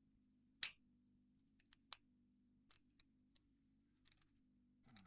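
Small sharp metallic clicks and ticks of a homemade lock pick working inside a padlock, irregular, with one louder click about two-thirds of a second in and another near two seconds; a faint steady hum underneath.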